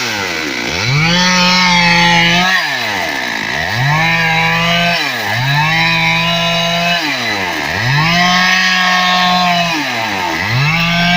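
Stihl MS 382 two-stroke chainsaw repeatedly throttled up to a steady high-speed run and let back down, about five times, each run lasting roughly two seconds.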